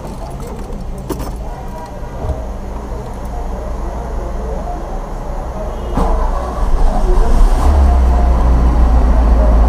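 Volkswagen Passat B1 engine running, heard from inside the car, with a few light clicks early on. About six seconds in it grows louder, and from about seven and a half seconds it turns into a much louder, deeper rumble.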